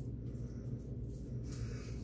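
A steady low hum, with a brief soft rustle near the end.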